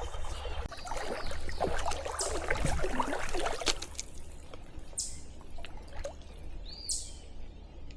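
Stream water trickling and splashing with rustling handling noise for the first few seconds, then settling to a quieter flowing-water hiss with a few short, high chirps.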